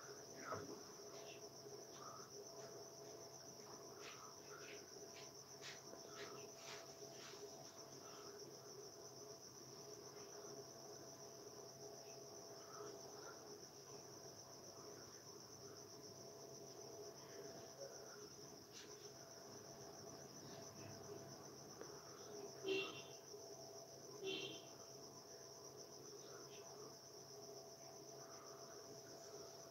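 Steady, faint chirring of crickets, with two short louder sounds about a second and a half apart near the end.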